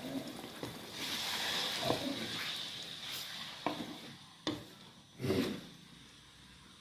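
Food frying in a pan with a sizzle that rises about a second in, while a cooking utensil stirs and knocks against the pan several times, the loudest knock a little after five seconds.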